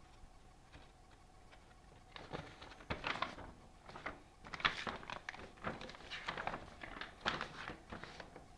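Glossy paper of a puzzle instruction sheet rustling and crinkling as it is unfolded and handled, in irregular spells starting about two seconds in.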